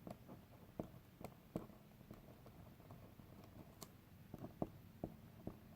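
Faint, irregular light clicks and taps, about a dozen scattered through, of pen and small objects handled at a desk.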